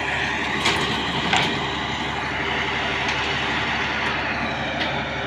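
A heavy machine's engine running steadily, with two short sharp sounds about a second in.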